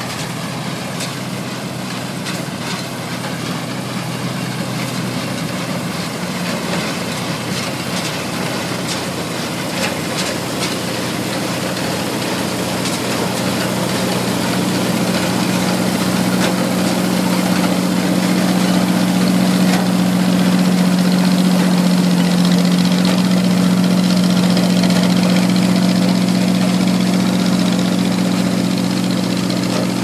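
Oliver combine harvester running while it cuts standing wheat, a steady engine drone under a broad rattle of its machinery. It grows louder as the combine comes close, loudest about two-thirds of the way through, then eases a little near the end.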